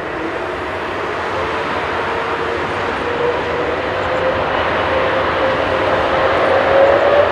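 Boeing 777-300ER's GE90-115B turbofan engines running with a steady roar and a whine. Over the last few seconds the whine rises in pitch and the sound grows louder as the engines spool up.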